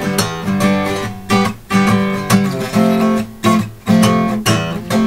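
Acoustic guitar strummed in a steady rhythm, a stroke about every half second, the chords sustaining between strokes.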